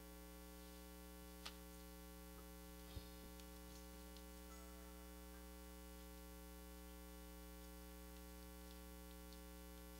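Near silence: a steady electrical hum, with two faint clicks in the first few seconds.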